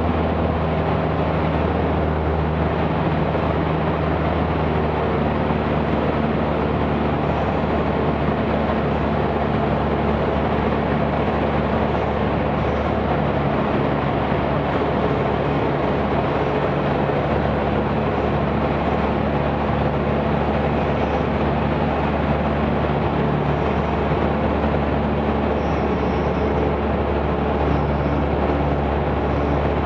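Cessna 172's piston engine and propeller running steadily in flight, heard inside the cabin as a constant drone mixed with airflow noise.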